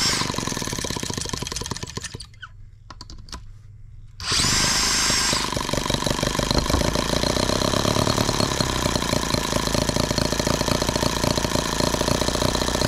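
An electric drill spins over a Microcosm H76 twin-cylinder model engine for a couple of seconds and stops. It spins it again about four seconds in, and the engine catches and runs on with a rapid, steady beat. The owner hears it missing, dropping a cylinder.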